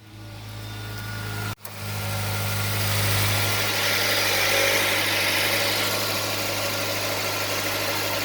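2015 Nissan Altima engine idling on a cold start, with a rattling buzz from the aluminium inner exhaust manifold heat shield vibrating against the manifold, a noise that goes away once the shield warms and expands. The sound drops out for an instant about a second and a half in.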